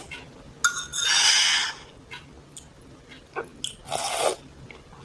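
Slurping of spicy pancit canton noodle soup: a long slurp about a second in, and a shorter one near four seconds.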